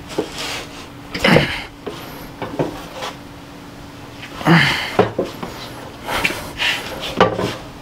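A man's heavy breathing: several sharp panting exhales and grunts of effort, a second or two apart, as he strains to hold a heavy steel bumper up in place.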